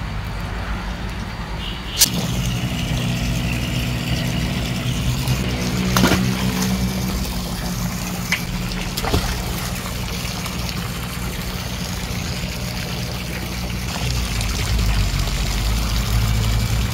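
Octopus aerator, a multi-outlet pond air pump, humming steadily while air bubbles up through the pond water. A sharp click comes about two seconds in, with a few lighter knocks later.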